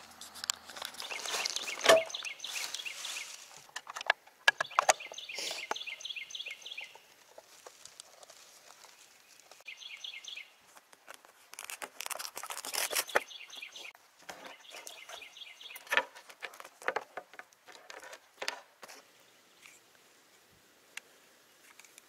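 A songbird calling in short runs of quick repeated high notes, several times over. Scattered clicks and knocks of gear being handled on a wooden picnic table come through it, the sharpest about two seconds in and again near sixteen seconds.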